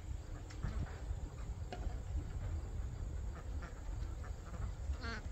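Chickens giving short, quiet calls as they move among scattered scratch grain, over chirping insects and a low rumble. A louder single bird call comes near the end.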